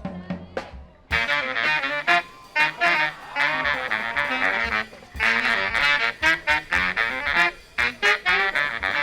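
Marching band playing a jazzy, swing-style passage. After a soft start with a few drum hits, the brass section comes in loud about a second in with punchy, accented chords over percussion strokes.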